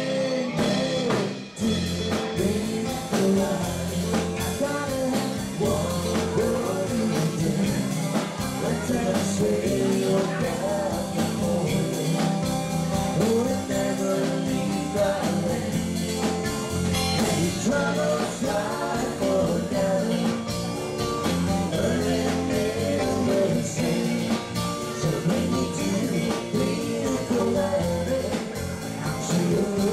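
A live country-rock cover band playing a song, with sung vocals over guitar and a steady drum beat.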